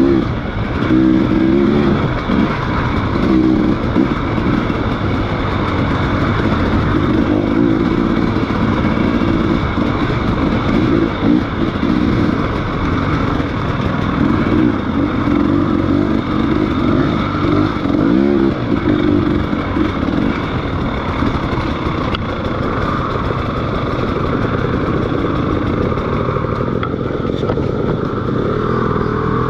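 Motorcycle engine running under way, its pitch rising and falling as the throttle opens and closes.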